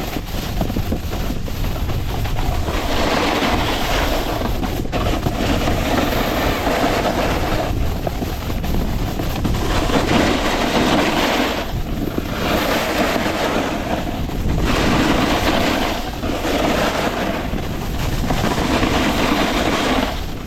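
Snowboard edge scraping across packed snow through a series of carving turns, swelling and fading every two seconds or so, over a low rumble of wind on the microphone.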